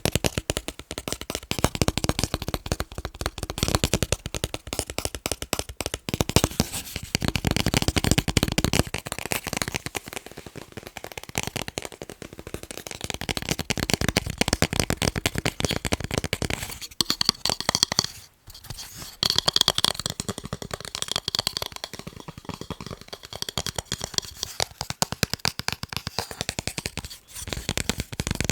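Fingers tapping fast on picture frames: a dense, rapid run of clicks, with a brief pause about two-thirds of the way through.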